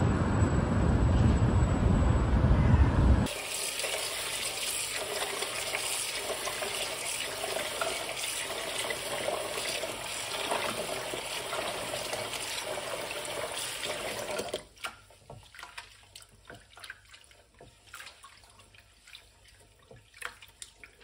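Wind rumbling on the microphone for about three seconds. Then a kitchen tap runs into a pot of rice in the sink while a hand stirs it. About fourteen seconds in the tap is turned off, leaving only soft sloshes and clicks of the rice being washed by hand in the water.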